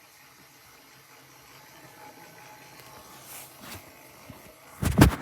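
Low steady hiss, then a loud thump near the end.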